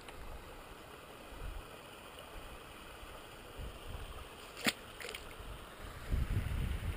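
Creek water running steadily, with gusts of wind rumbling on the microphone, strongest near the end. Two sharp clicks come in quick succession a little past halfway.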